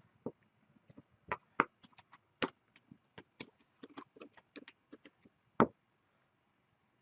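An irregular series of sharp knocks and clicks of hard pieces handled or tapped at a workbench, uneven in spacing and strength, with the loudest knocks about a second and a half in and near the end.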